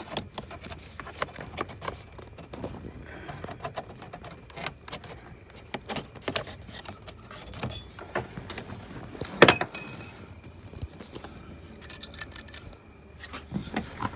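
Hands working at a car's steering column: scattered plastic clicks and light knocks as trim and parts are handled, with a loud metallic jingle, like keys or a tool shaken, about nine and a half seconds in and a smaller one a couple of seconds later.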